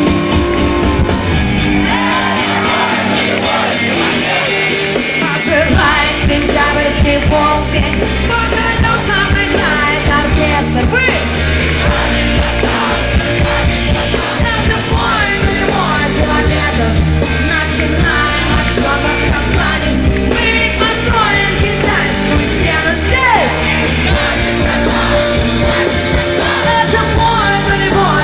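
Rock band playing live with a female lead singer, heard from the audience.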